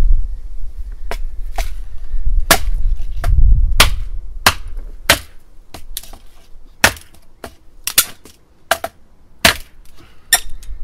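Cold Steel kukri machete chopping through a thin stick of light brush on a wooden chopping block: a rapid, irregular string of sharp chops, about one or two a second, with the blade biting into the block beneath.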